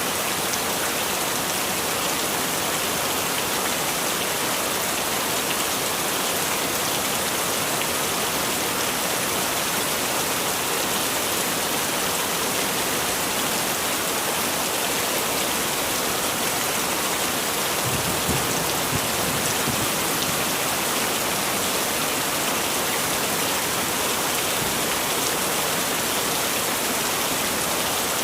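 Heavy rain falling steadily, a dense even hiss of drops on surfaces. About two-thirds of the way through, a brief low rumble rises under it.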